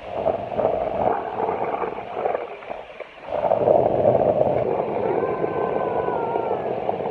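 Small scooter wheels rolling over rough asphalt with a steady gritty rumble that dips briefly about three seconds in. A thin motor whine falls in pitch between about five and seven seconds in.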